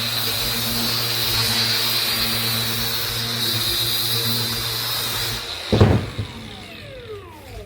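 An electric power tool runs steadily and is switched off a little over five seconds in. A loud knock follows, and the motor winds down with a falling whine.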